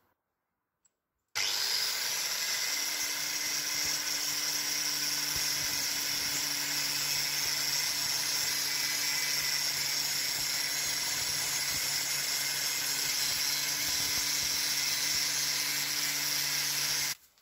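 Angle grinder with a 6 mm grinding disc sharpening a steel rebar-cutter blade to a 25-degree bevel: a steady grinding rush over the motor's hum. It starts suddenly about a second in and stops abruptly just before the end.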